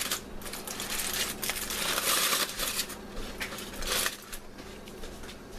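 Aluminium foil crinkling and crackling as a foil wrapping is pulled open by hand, dying down about four seconds in.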